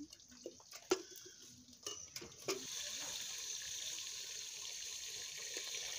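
A small steel bowl clinks and knocks several times against a metal water bucket as water is scooped out, followed by a steady watery hiss.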